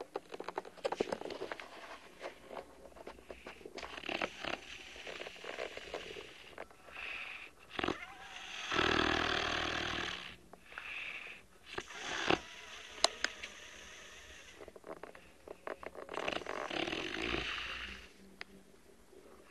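A man snoring in his sleep: long, rough breaths every few seconds at an uneven pace, the loudest and longest about nine seconds in. A few sharp clicks fall between the snores.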